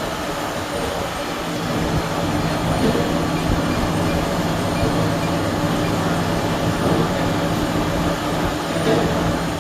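Milling machine running: a steady, heavy mechanical drone with a rough grinding noise, growing a little louder and steadier about a second and a half in.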